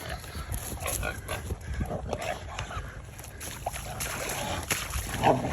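A catch dog holding a feral hog: scuffling and short animal noises over a steady low rumble.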